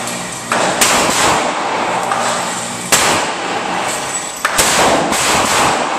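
AR-15-style rifle firing single shots, several sharp reports at uneven intervals, each followed by a long echo in an indoor range.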